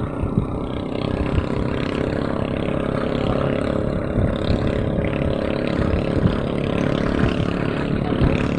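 A small engine running steadily at a constant speed, with no revving or change in pitch.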